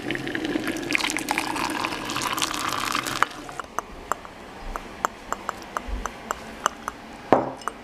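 Just-boiled water poured from an electric kettle into a mug with a tea infuser, a gushing fill for about three seconds; then a run of light, irregular clicks and taps.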